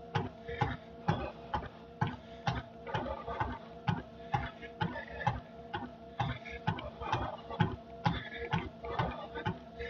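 Cardio machine in use, clicking evenly about twice a second with each stride over a steady mechanical hum.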